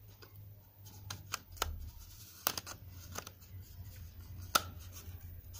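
Lens hood being twisted onto a camera lens by hand: a series of small clicks and scrapes, the sharpest about two and a half and four and a half seconds in.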